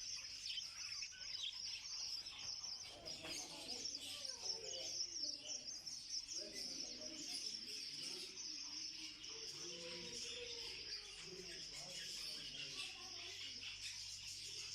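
Many small caged birds chirping and twittering at once, a dense, continuous high chatter, with faint voices underneath.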